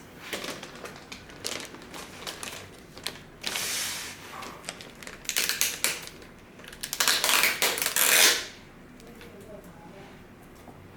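Packaging being handled as a car head unit is lifted out: small clicks and taps, with three rustling, crinkling bursts of about a second each, the longest and loudest near the end.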